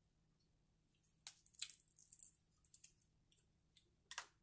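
Snow crab leg shells clicking and crackling as they are picked apart by hand, in irregular bursts of sharp clicks starting about a second in, with one louder crack about four seconds in.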